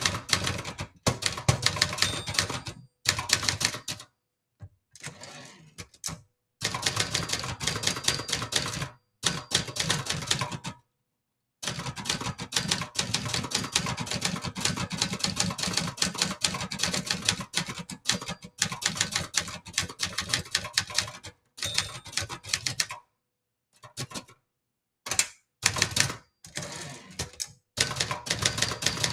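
Brother Charger 11 portable manual typewriter being typed on: fast runs of typebar strikes against the platen, broken by several short pauses.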